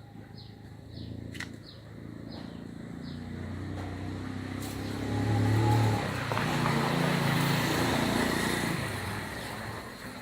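A motor vehicle passes by: its engine grows louder for about six seconds, then fades away. A short high chirp repeats about twice a second during the first few seconds.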